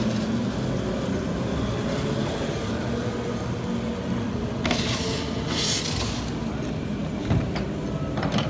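Go-karts running around an indoor track, heard as a steady mechanical hum filling the hall. There is a brief hiss about five seconds in and a knock near the end.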